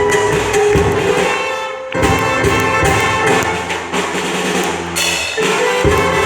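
Dance orchestra playing: sustained melody notes over drums and percussion, with the bass dropping out briefly about two seconds in and again near the end.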